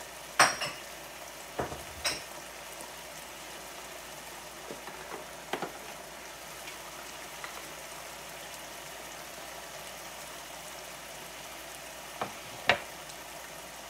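Pan of roasted red pepper sauce with wine and stock simmering with a steady sizzle, stirred with a wooden spoon. A few sharp clicks and knocks, the loudest about half a second in and near the end.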